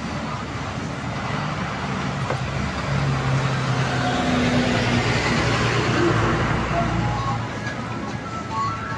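A bus drives past close by in street traffic, its engine and tyre noise swelling to a peak about halfway through and then fading.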